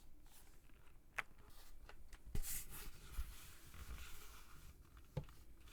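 Faint handling noise from a full-size mechanical keyboard: a few separate clicks, the sharpest about a second in and near the end, and a short rub with a thump about two and a half seconds in.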